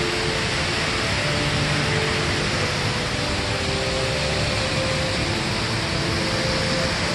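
Steady rush of the Rain Vortex indoor waterfall, a large column of water falling from the roof's opening into a pool below.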